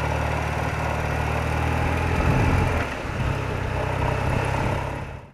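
BMW R80RT's air-cooled flat-twin engine running at low revs, its pitch shifting briefly about two seconds in before settling again. It fades out at the end.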